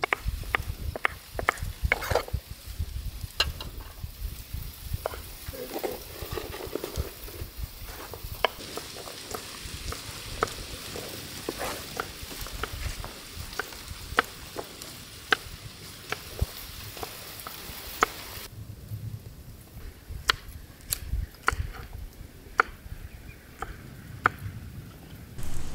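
Food frying and sizzling in a large cooking pot while a ladle stirs it, knocking against the pot in sharp clicks. The sizzling hiss cuts off about three quarters of the way through, while the knocks go on.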